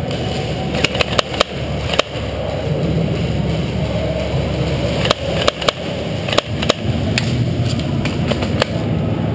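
Scattered sharp clacks of airsoft gunfire and BB impacts in an indoor arena with plywood walls, irregular single shots rather than a steady burst, over a steady low rumble of background noise.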